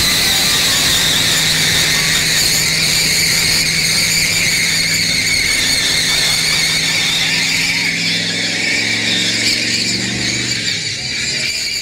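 Car doing a burnout: the rear tyres squeal with a high, wavering screech while the engine is held at high revs. Over the last few seconds the revs drop and the squeal fades.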